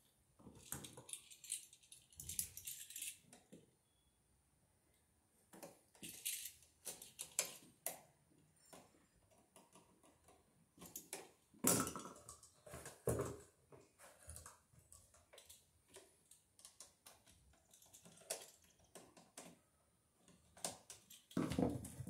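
Hand tools and electrical wire being handled: scattered small clicks, metal clinks and rustling, with two louder knocks a second or so apart about halfway through.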